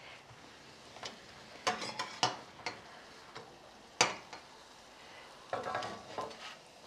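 Corn tortillas sizzling faintly in hot oil in an enamel frying pan, with a fork clicking and scraping against the pan several times. Near the end, a scraping as filling is tipped from a clay plate.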